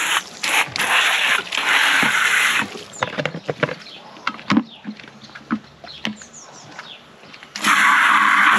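Water from a hose's trigger spray nozzle gushing into a plastic chicken waterer, with short breaks, stopping about two and a half seconds in. Then scattered clicks and knocks as the plastic drinker is handled, and the water runs again shortly before the end.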